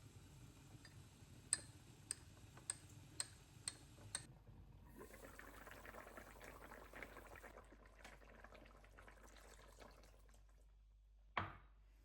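Six sharp clicks about half a second apart, then liquid pouring for a few seconds, and a single knock near the end.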